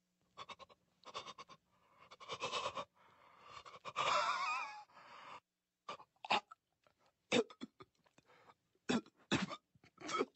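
A cartoon baby's voice, Stewie Griffin, gasping and panting in short breaths, then a louder wavering retching sound about four seconds in. It is followed by a string of short, sharp coughing and spluttering bursts, as if gagging at the taste.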